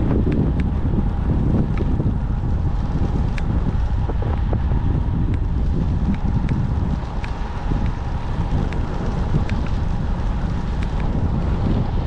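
Wind buffeting an action camera's microphone on a moving road bike: a heavy, steady rumble, with a faint steady hum and scattered light ticks through it.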